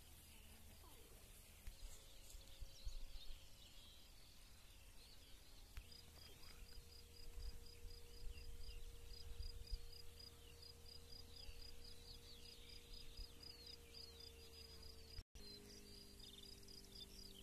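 Faint open-country ambience: small birds chirping and twittering, and from about six seconds in a thin, evenly repeating pulse of about three chirps a second, like an insect. A low wind rumble runs underneath.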